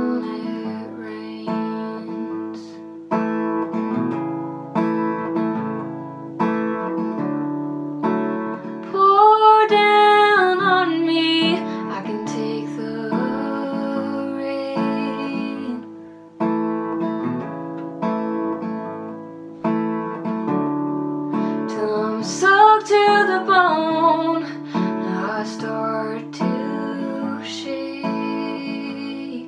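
Acoustic guitar strummed and plucked in a slow chord pattern, with a young woman singing over it; her voice stands out most in two long sung phrases, about a third of the way in and again about three quarters through.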